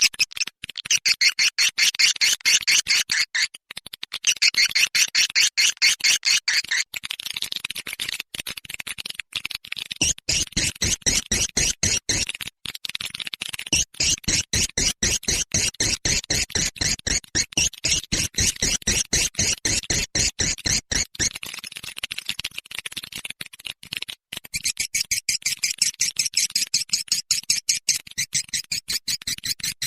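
Swiftlet calls on a lure recording: fast rhythmic chirping, about five high chirps a second, repeating without a break. A deeper pulsing layer runs under the chirps from about ten seconds in until about twenty-one seconds. This is the roosting ('inap') call played in swiftlet houses to draw the birds in to roost.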